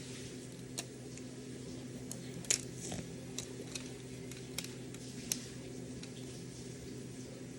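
Scattered small plastic clicks and taps as Snap Circuits snap parts and wires are handled and snapped together, about eight in all, the sharpest about two and a half seconds in. A steady low hum runs underneath.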